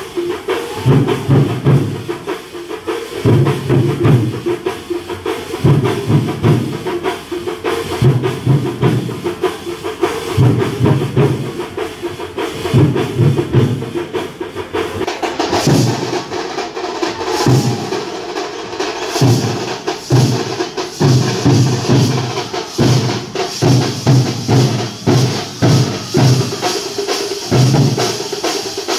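Drums playing a fast, driving rhythm in repeating phrases of low beats, with a brighter, hissy layer coming in about halfway through.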